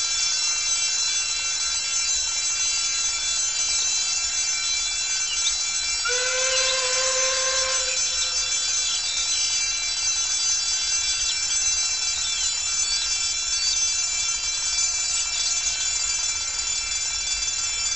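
Level crossing warning alarm sounding steadily, a high multi-tone electronic wail. About six seconds in, the approaching Caledonian Railway 812 class 0-6-0 steam locomotive No. 828 blows its whistle once for about two seconds, a lower tone that rises briefly as it starts. Birds chirp faintly.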